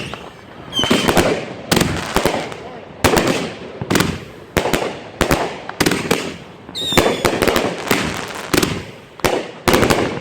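Backyard consumer fireworks going off in quick succession: sharp bangs about once a second, each followed by crackling. Short falling whistles sound about a second in and again near the seventh second.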